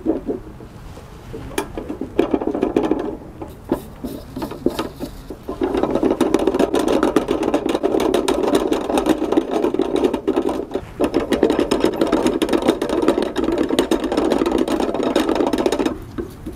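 Food frying in a pan on a portable burner: a dense, steady sizzle and crackle starts abruptly about a third of the way in and cuts off near the end. Before it come scattered clicks and knocks.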